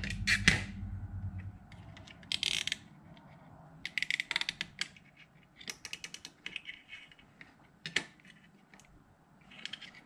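Hands handling a speaker crossover circuit board with its coils and capacitors on a glass table: scattered clicks and rattles with short rustling bursts. A low rumble fills the first second or so.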